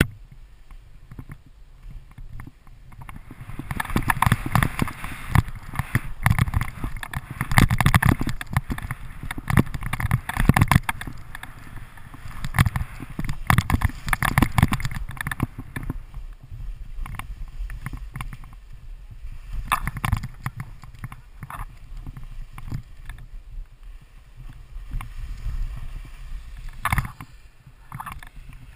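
Skis swishing and scraping through snow on a downhill run, coming in uneven surges with the turns and loudest through the first half, with a steady low wind rumble on the helmet-mounted camera's microphone. Near the end, sharp scrapes cut in as the edges bite.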